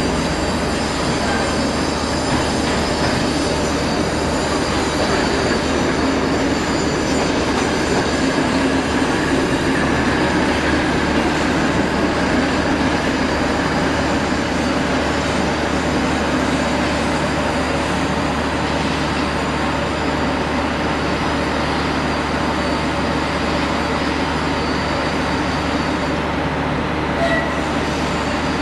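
Train hauled by a BR Standard Class 4 steam locomotive running along the line: a steady, loud rolling noise of coaches on the rails, with a faint high squeal of the wheels.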